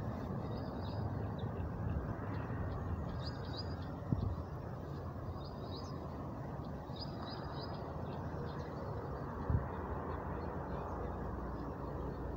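Outdoor ambience: birds chirping in short repeated bursts over a steady rushing background noise, with two dull knocks, about four and nine and a half seconds in.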